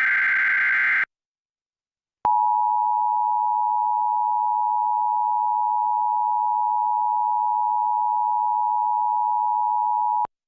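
The last second of an Emergency Alert System SAME header, a dense electronic data screech, then a pause. After that comes the EAS attention signal: a steady two-tone alert tone just under 1 kHz that sounds for about eight seconds and cuts off abruptly near the end. It announces the start of a tornado warning.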